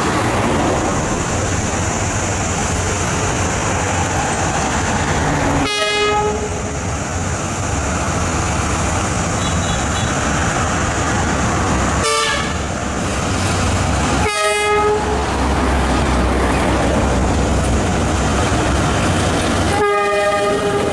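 D19E diesel-electric locomotive running past with its engine rumbling, sounding its multi-note horn four times: short blasts about six, twelve and fourteen seconds in, and a longer one near the end. The container wagons begin rolling past near the end.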